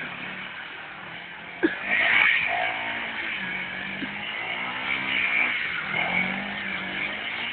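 Motorcycle engine revving up and down again and again, with a sharp knock about one and a half seconds in.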